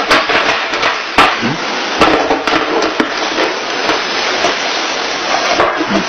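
Irregular sharp knocks and clicks over a steady hiss.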